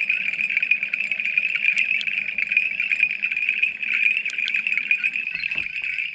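Dense chorus of calling frogs and insects: a steady, rapidly pulsing high trill, with a few faint clicks.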